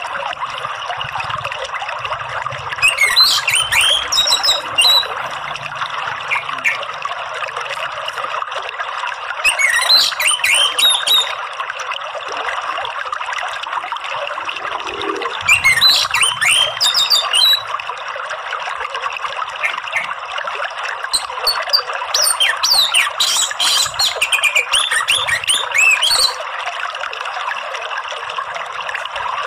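Steady rush of running water, with an orange-headed thrush (anis merah) singing over it in four bursts of quick, falling notes, the longest near the end.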